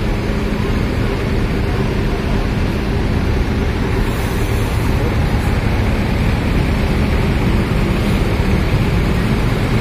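Tour bus diesel engine idling steadily: a constant low hum that holds one pitch without revving.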